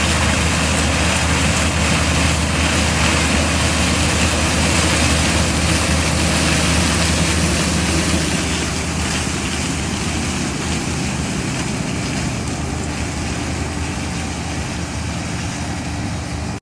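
Combine harvester running steadily at work, a constant engine drone under a broad mechanical rush, easing slightly in loudness about halfway through.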